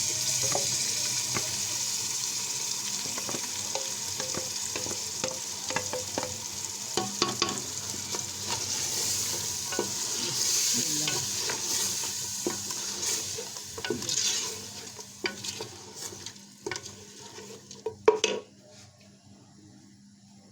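Hot oil sizzling in a cooking pot as blended onion, tomato and yogurt paste goes in from a blender jar, with a spoon scraping and tapping against the jar. The sizzle fades over the last few seconds, and one sharp knock comes near the end.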